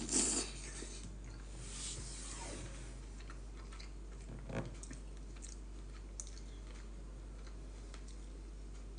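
A person quietly eating soup: chewing, with a few brief soft sounds near the start, about two seconds in and about four and a half seconds in.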